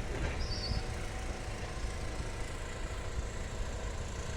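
Steady outdoor background noise with a low rumble, with a brief high chirp about half a second in.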